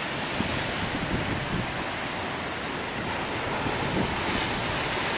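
Ocean surf crashing and washing over a rocky shore, a steady rushing roar, with wind buffeting the microphone.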